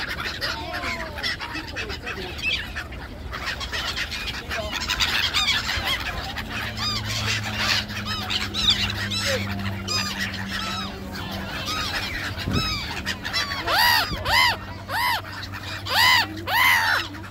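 A flock of black-headed gulls calling all at once, many harsh, arching cries overlapping. In the last few seconds a run of loud calls comes from birds close by.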